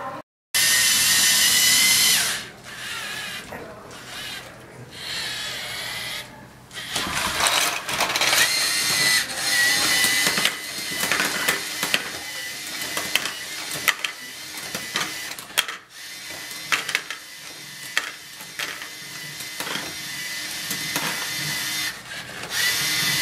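LEGO Mindstorms robot at work: its electric motors whine loudly in spells, near the start and again near the end, with a clatter of sharp clicks and knocks in between as its plastic Lego sorter mechanism dumps and sorts bars.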